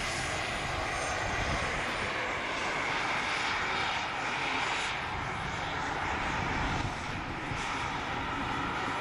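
Turbine-powered scale model Bell 206B3 JetRanger helicopters in flight, their Jakadofsky model turbine engines giving a steady whine with rotor noise and a thin high tone above it.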